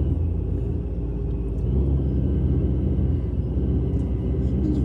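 Low, steady rumble of a car's engine and running gear heard from inside the cabin while driving slowly.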